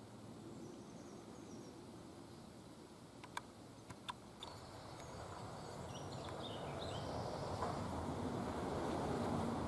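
Faint, high chirping of great spotted woodpecker nestlings inside the nest hole. A few sharp clicks come in the middle, and a broad rushing noise swells through the second half and becomes the loudest sound.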